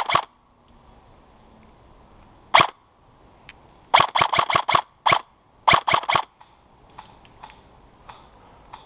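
Wolverine Inferno Gen 2 HPA airsoft rifle firing in quick strings of sharp pops: a single shot about two and a half seconds in, then about five rapid shots around four seconds, one more, and four more just before six seconds. Fainter clicks follow near the end.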